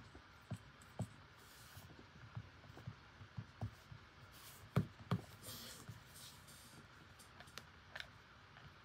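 Quiet taps and clicks from handling a smartphone and a clear plastic phone case, scattered about twice a second. Two louder knocks come close together about five seconds in, followed by a brief soft rustle.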